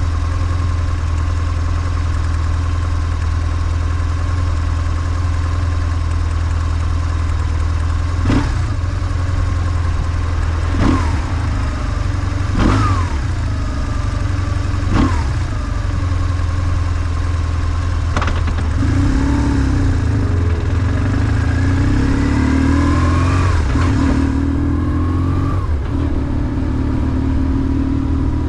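BMW R1150GS's air/oil-cooled flat-twin boxer engine running steadily at low revs. From about two-thirds in it pulls harder, its revs rising and falling. Five sharp clunks come in the middle stretch.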